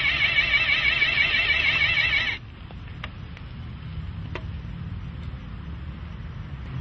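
The motorised spikes of a coin-operated park bench retracting: a loud, warbling whir that stops abruptly about two seconds in. A low hum and a few faint clicks follow.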